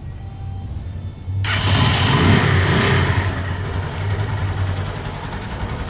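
Italika 170Z motorcycle's single-cylinder four-stroke engine starting on the first try: it catches suddenly about a second and a half in, revs briefly, then settles into a steady idle.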